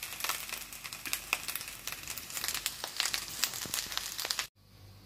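Spatula stirring and turning fried rice in a nonstick frying pan: a busy run of irregular scraping clicks and crackles that cuts off suddenly about four and a half seconds in.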